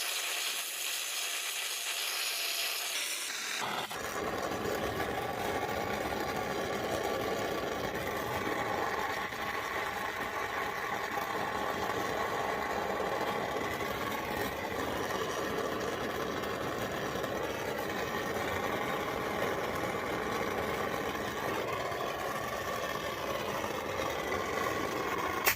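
Handheld gas torch burning steadily while heating a capped copper fitting to solder it. For the first few seconds it is a thin high hiss, then about four seconds in it changes to a fuller, deeper steady flame noise, which cuts off suddenly at the end.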